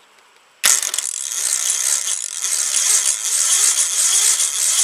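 Electric starter motor on a 1987 8 hp Briggs & Stratton engine cranking it over with a steady grinding noise, which the owner puts down to the starter's metal gear. It starts suddenly about half a second in.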